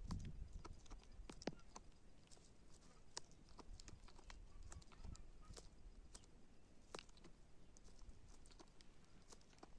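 Goat grazing close by: faint, scattered sharp clicks and snaps as it bites off plants among the stones.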